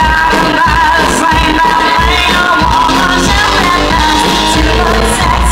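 Live, amplified rock band playing loudly: a woman sings long, wavering held notes over electric guitar and a steady drum beat.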